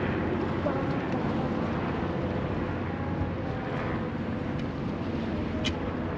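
Steady low outdoor rumble, with one brief sharp tick near the end.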